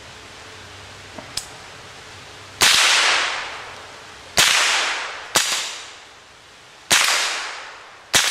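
Five .22 LR shots from an AR-15 fitted with a CMMG .22 bolt conversion kit, spaced one to two seconds apart, each ringing out for about a second. Two faint clicks come just before the first shot.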